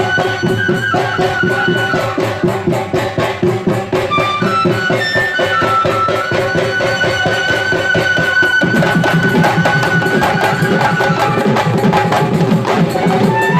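Bihu folk music: dhol drums playing a fast, dense rhythm under a wind instrument's melody of stepping notes, one held long in the middle.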